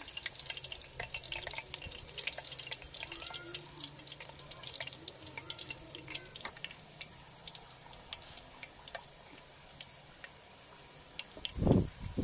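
A puri deep-frying in hot oil in a metal pot: a steady sizzle with scattered crackling pops, thinning out in the second half. A loud low thump near the end.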